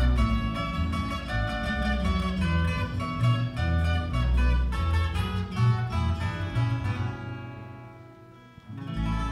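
Two acoustic guitars and a double bass playing an instrumental passage of a Purépecha song, plucked notes over a bass line. The playing dies away about seven seconds in, and a last low note sounds near the end.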